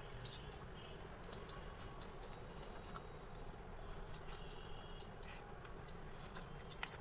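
Close-miked chewing of pizza: a string of short, sharp mouth clicks and smacks at irregular intervals over a low steady hum.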